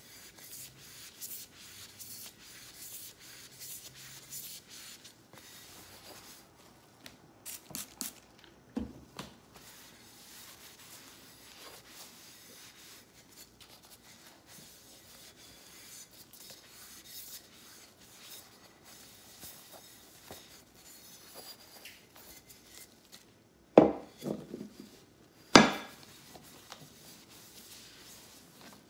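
Cloth rubbing and wiping over a lampshade held in gloved hands, a soft steady swishing, with a few light knocks; two sharp knocks of the shade against the plastic-covered table a few seconds before the end are the loudest sounds.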